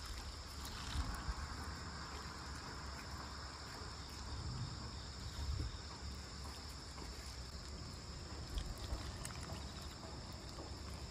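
Steady, faint high-pitched chirring of insects, with a few low thumps about a second in, around five seconds in and near eight and a half seconds.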